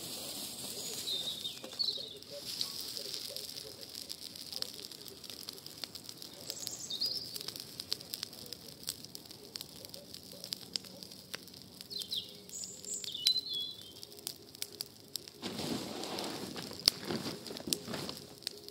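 A garden fire of pruned bush branches burning in a fire bowl, crackling with many sharp pops over a steady hiss. Small birds chirp several times, and near the end a louder rushing noise rises for about two seconds.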